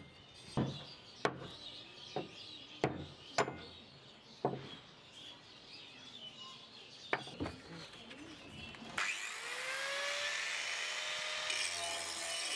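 A few sharp knocks as the old knife and its wooden handle are handled on a wooden workbench. About nine seconds in, an angle grinder starts, its whine rising as it spins up, then runs steadily as its abrasive disc grinds rust off the steel blade.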